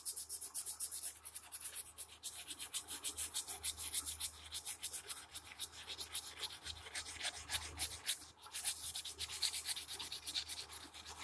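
Waterproof silicon carbide sandpaper rubbed in quick back-and-forth strokes over the printed side of a ceramic mug, several strokes a second, with a brief pause about eight seconds in. The glossy heat-transfer photo print is being sanded off the mug.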